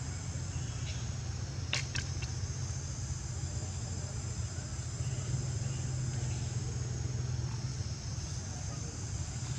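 Outdoor ambience: a steady high drone of insects over a steady low hum, with two short, high sounds about two seconds in.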